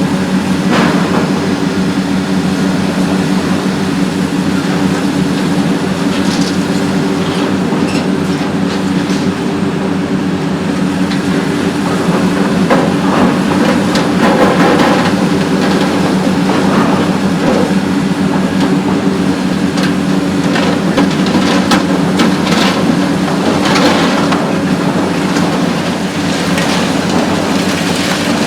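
Hitachi ZX 870-3 long-front demolition excavator's diesel engine running steadily under load, with irregular cracking and clattering as its demolition shear breaks up concrete and debris falls.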